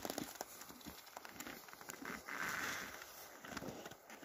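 Irregular crunching and crackling footsteps on hard frozen snow in deep frost, with a soft rushing noise about two seconds in.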